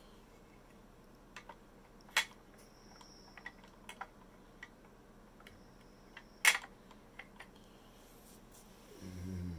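Opened doors and panels of a Hot Wheels Elite diecast Ferrari 458 Italia GT2 model car being pressed shut: two sharp clicks about two seconds and six and a half seconds in, with lighter ticks and taps of the small parts around them. A short low hum near the end.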